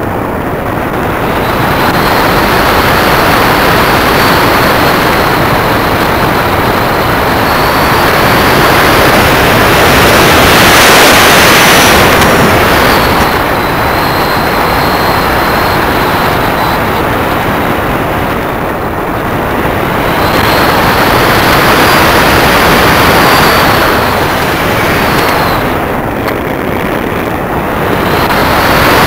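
Multiplex EasyStar's electric pusher motor and propeller whining, its pitch wavering, under loud wind rushing over the plane-mounted camera's microphone. The rush swells and dips several times.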